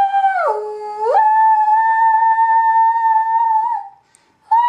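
A female voice toning high sustained notes down the pipe of a homemade tonoscope. The note dips lower about half a second in, jumps back up a second in and is held steady for nearly three seconds, then stops briefly before another note begins near the end.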